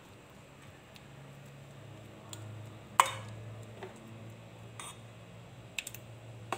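A metal spoon stirring thick pickle in a stainless-steel pot, with a few clinks as it knocks the pot. The loudest clink comes about three seconds in, with lighter ones scattered after it, over a faint steady low hum.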